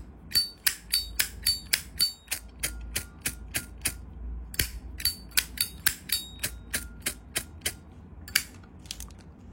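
Brushed-brass Zippo lighter's hinged lid flicked open and snapped shut over and over, about three sharp metallic clacks a second, many with a brief ringing ping. There is a short pause midway and one last clack near the end.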